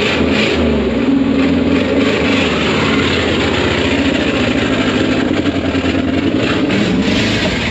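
Jeep Grand Cherokee ZJ's 5.2-litre V8 running hard at high revs, loud, steady and rough with a coarse pulsing beat. The engine is dying and is said to be down to three of its eight cylinders.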